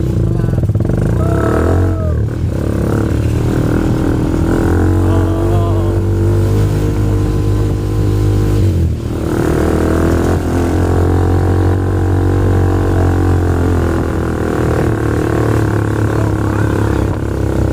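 Motorcycle engine of a homemade mini jeep running steadily while under way, with a brief drop in the engine note about nine seconds in before it picks up again.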